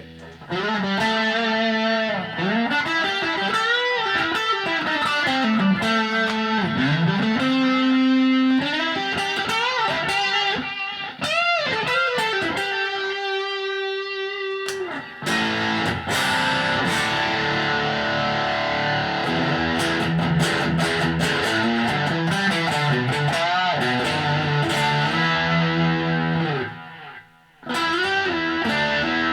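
Single-coil electric guitar played through a Blackstar ID:Core 40 combo amp with delay and reverb on: single-note lead lines with string bends and vibrato, turning to denser, fuller playing about halfway through, with a short break near the end.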